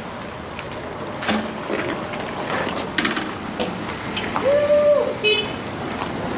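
Electric bike riding over rough ground: steady wind and tyre noise with a few sharp knocks from bumps. A short, flat horn-like beep sounds about four and a half seconds in.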